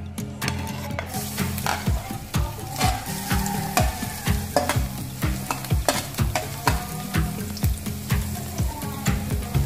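Minced garlic sizzling in hot oil in a wok, the sizzle setting in about a second in as it hits the oil, with a spatula repeatedly scraping and stirring it around the pan.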